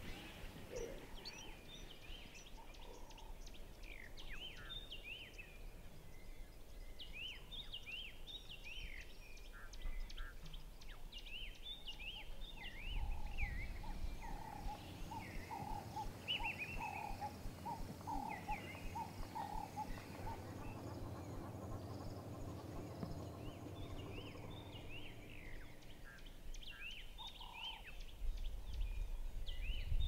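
Wild birds calling: many short, quick chirps and whistled notes throughout, with a run of lower, rapidly repeated calls in the middle. Under them a low rumble swells twice, about halfway through and again near the end.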